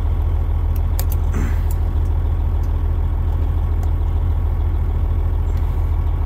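Freightliner Coronado truck's diesel engine idling steadily in the cab as a low, even hum, with a few light clicks about a second in from prying at a stuck dash wiper switch.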